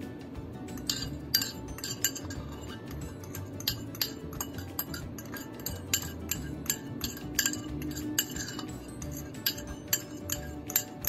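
Irregular clinks of a utensil against a bowl as the cassava cake topping is scraped out and poured over the batter, over quiet background music.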